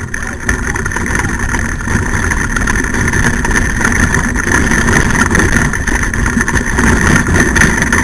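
Dog-cart (training kart) wheels rolling over a rough dirt trail under a malamute team: a steady rumble with constant fine rattling.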